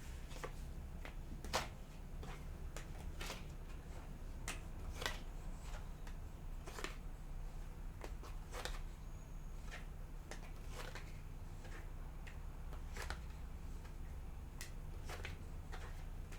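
Tarot cards being shuffled and handled: irregular soft snaps and flicks of the cards, the sharpest about a second and a half in.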